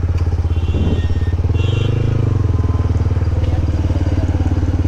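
Yamaha MT15 V2's 155 cc single-cylinder engine idling through a loud aftermarket exhaust, with a rapid, even, deep putter and a slight swell about two seconds in.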